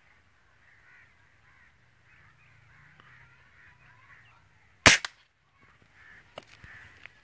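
A single loud gunshot about five seconds in, taken at doves perched on an overhead wire, followed at once by a fainter crack. Small birds chirp steadily throughout.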